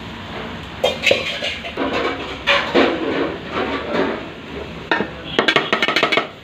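Metal utensils clattering and scraping against a cooking pan, in irregular knocks with a quick run of taps near the end.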